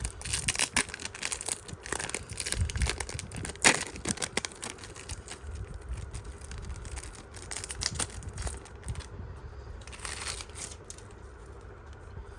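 Foil booster-pack wrapper crinkling and being torn open, with one sharp crack about four seconds in, then quieter rustling of the pack and cards.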